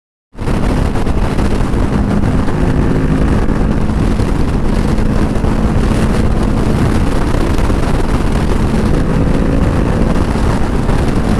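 Honda CBR500R's parallel-twin engine running steadily at highway speed, with heavy wind rush over the microphone. The sound cuts in abruptly a moment in, after silence.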